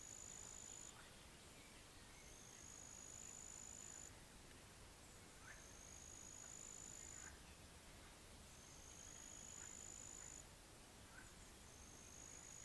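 Faint, high-pitched insect buzz in about two-second phrases, each rising slightly in pitch and repeating every three seconds or so, over a steady low hiss. A few faint short chirps are scattered in between.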